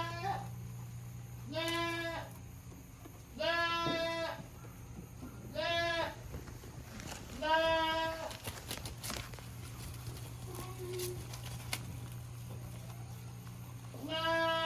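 Goat bleating: four calls about two seconds apart, then a pause of several seconds and one more call near the end, over a steady low hum.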